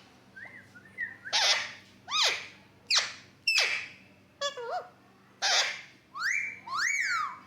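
Pet parrot giving a string of about eight shrill calls and whistles, several of them sliding sharply up or down in pitch. It ends with two whistles that rise, hold and fall.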